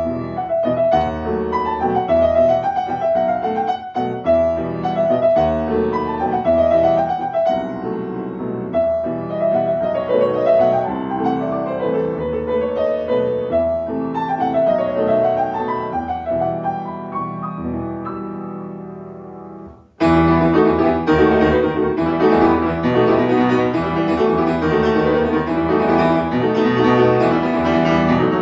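Solo piano playing a theme-and-variations piece in classical style, a melody rising and falling over chords. The playing fades and breaks off just before twenty seconds in, then resumes louder and fuller.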